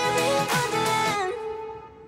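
Background music with several pitched notes, some sliding in pitch, over a beat; it ends about a second and a half in, leaving a single held note that fades away.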